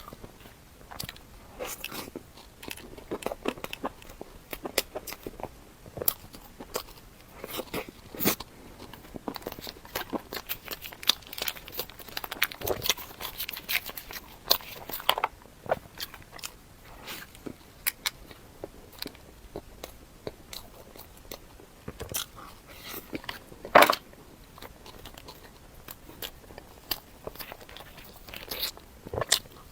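Close-miked eating: a person biting and chewing crisp, crunchy food, with many short crunches and mouth clicks and one louder crunch about 24 seconds in.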